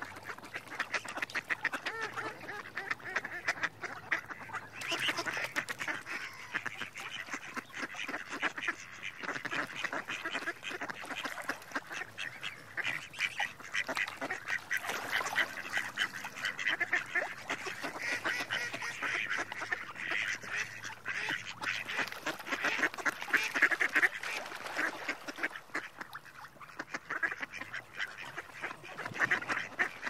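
Mallard ducks quacking in a dense run of rapid calls, with short lulls about four seconds in and near the end.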